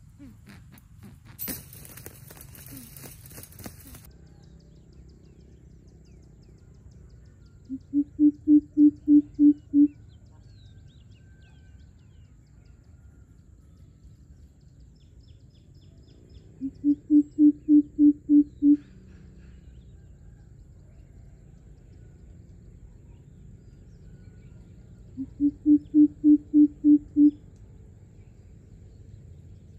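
Greater coucal calling: three bouts of about eight deep, evenly spaced hoots, each bout lasting about two seconds, repeating roughly every eight seconds.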